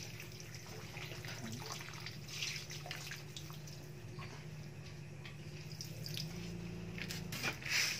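Muddy water dripping and splashing onto a concrete floor as a dirty aquarium filter floss pad is squeezed out by hand and a plastic dipper is emptied, over a faint steady low hum.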